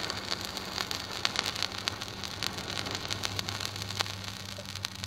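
Pile of potassium permanganate burning after being ignited with glycerine: a steady hiss of flame with many small crackles and pops.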